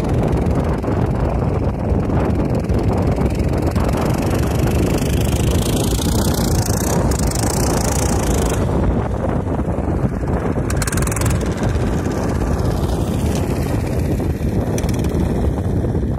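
Small engine of a mini motorized tow (a tracked 'motodog' snow tug fitted with a wheel module) driving past. Its whine rises as it approaches about halfway through and then falls away as it moves off, over a steady wind rumble on the microphone.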